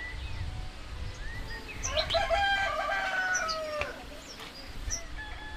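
A rooster crows once, a long call of about two seconds starting about two seconds in, with small birds chirping around it.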